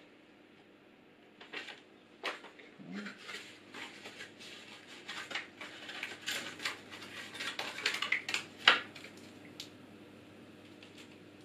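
Cardboard and paper packaging rustling and crackling as it is handled and pulled from a small box: a quick run of crinkles and light taps that starts after a quiet second or so and stops a couple of seconds before the end, with the loudest crackle just before it stops.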